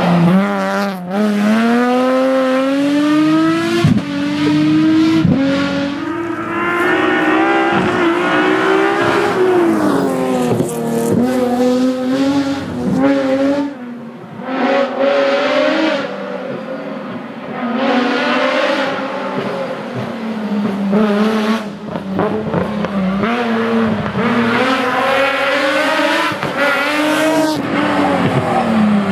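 Nissan 370Z's 3.7-litre V6 driven hard, its engine note repeatedly climbing under throttle and then dropping on lift-off or shifts, over and over.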